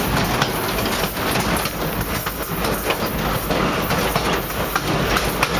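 A passenger train rolling along jointed track, heard from the rear of the train: a steady rumble of wheels on rail with frequent clacks as the wheels cross the rail joints.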